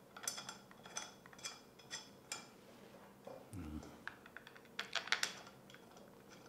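Faint scattered clicks and light metal clinks from aluminium extrusion frame parts being handled and fitted together, with a quick cluster of clicks about five seconds in.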